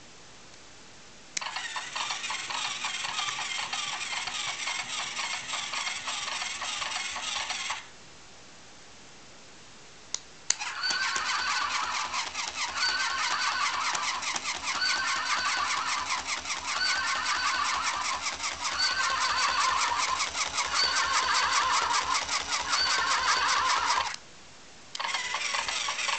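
Battery-operated toy pony. First comes its fast rhythmic trotting noise over the whirr of its small motor for about six seconds. After a pause and a click, an electronic whinny loops about every two seconds over the motor whirr, cuts off, then starts again briefly near the end.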